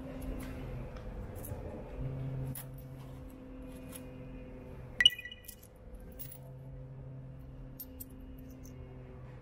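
Low steady electrical hum of a snack vending machine with scattered faint ticks, and about five seconds in a single sharp metallic clink with a short ring: a coin dropping into the machine's coin slot.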